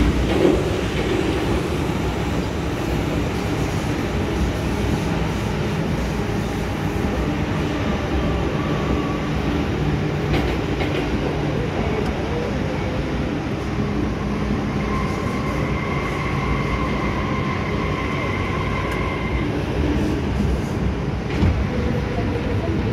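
MTR M-Train electric multiple unit heard from inside the car on the underground Tsuen Wan Line: the steady rumble of wheels and running gear, with a thin steady whine for about five seconds in the middle.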